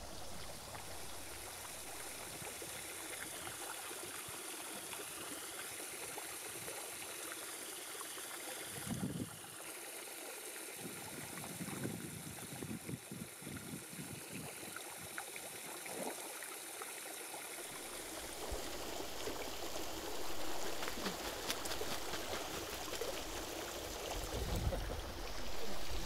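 Steady running water at a bird pool, a continuous stream-like trickle, with a few brief soft low sounds over it.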